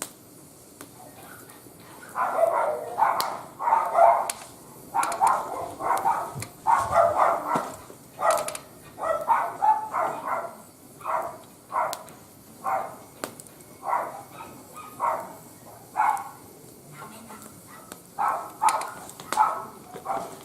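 A dog barking over and over, starting about two seconds in at roughly one or two barks a second, with a short pause near the end before a few more barks.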